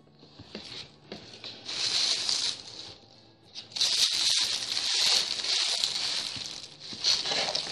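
Rustling and crinkling of takeout food packaging being handled, in a short burst and then a longer stretch of several seconds.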